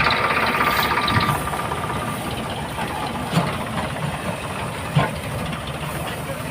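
Greengold combine harvester running steadily. A hiss with a high whine is loud at first and drops away about a second in. Two short knocks come later.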